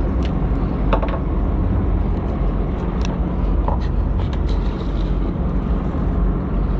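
Boat engine running steadily at idle, a continuous low drone, with a few small clicks about one and three seconds in.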